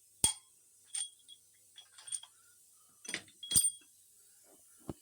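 Irregular metallic clinks and taps of hand tools and bolts on an engine during cylinder head bolt removal, each with a short high ring. The loudest come just after the start and about three and a half seconds in.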